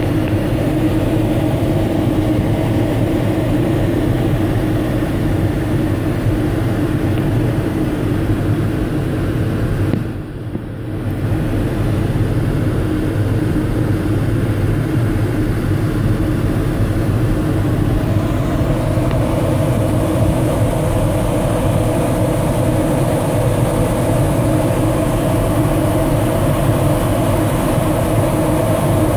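Steady rush of air in a sailplane's cockpit in flight, with a steady low hum under it. The sound drops away briefly about ten seconds in.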